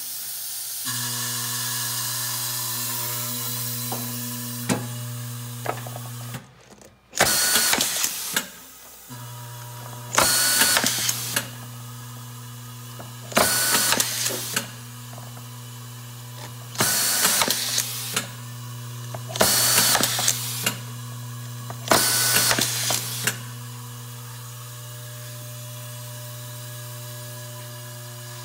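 Vibratory bowl feeder of an automatic-feed screwdriver humming steadily. Over it, a pneumatic screwdriver runs six times in short, hissing bursts about three seconds apart, each one feeding a screw through the tube and driving it into a plastic pump housing.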